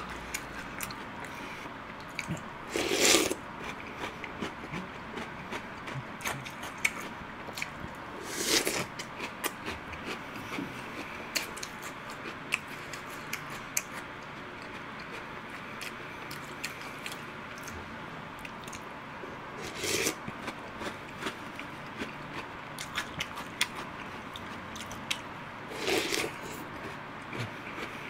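Close chewing of crunchy chocolate cereal balls in milk: a run of small crunches, broken four times by a louder short sound about half a second long.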